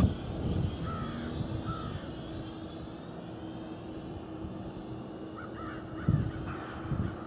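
Crows cawing: a couple of short calls about a second in and a cluster of calls near the end. Under them is a faint steady hum, and wind buffets the microphone in low rumbles.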